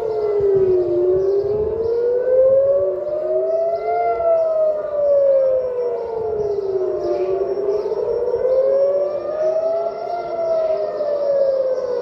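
Civil defense air-raid siren wailing, its pitch rising and falling slowly, about three seconds up and three seconds down, with another siren overlapping out of step. It is the warning of incoming rockets.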